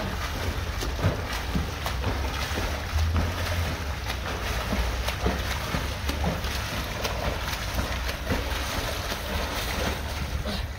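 A swimmer's arm strokes and kicks splashing continuously in pool water as he swims front crawl.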